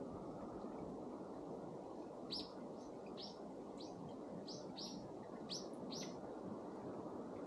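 A small bird chirping: about eight short, high notes, each dropping in pitch, starting about two seconds in. Steady low outdoor noise runs underneath.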